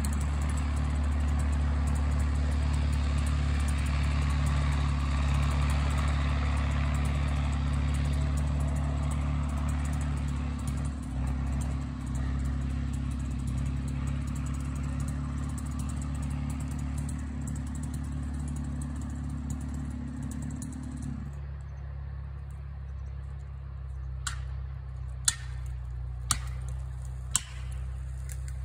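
Lawn mower engine running steadily. Its higher-pitched noise drops away about three-quarters of the way through, leaving a lower drone, and four sharp clicks come about a second apart near the end.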